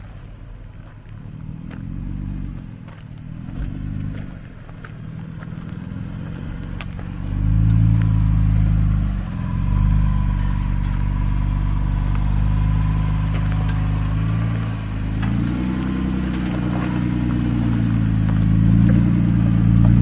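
Jeep engine running at low crawling speed on a rocky trail, with a few sharp clicks. It gets louder about eight seconds in and stays up.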